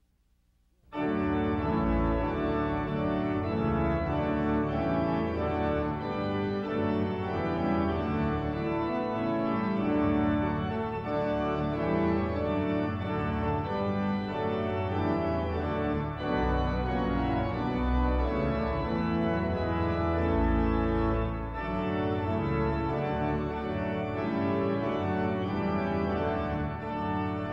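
Organ music playing sustained chords over deep bass notes, starting abruptly about a second in.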